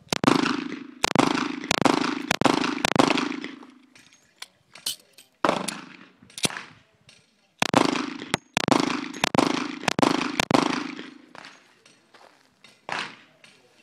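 Springfield Armory XD-S subcompact .45 ACP pistol firing hollow-point rounds. It fires two strings of about five shots each, roughly half a second to a second apart, with one or two single shots between them. Each shot rings out with a short echo.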